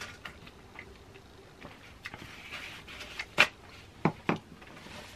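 Quiet eating and food-handling sounds: scattered soft clicks and smacks, the sharpest about three and a half seconds in and two more just after four seconds.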